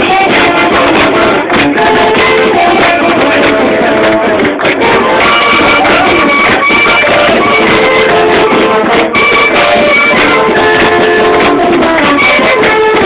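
Loud music throughout, a melody of held notes over a dense backing.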